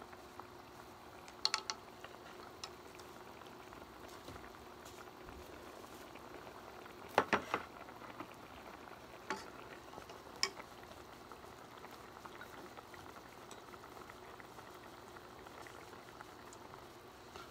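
Pot of kimchi hot pot simmering, with a steady bubbling. Over it come a few light clicks and knocks of chopsticks and tableware, the loudest cluster about seven seconds in, when a ceramic rice bowl is set down on the table.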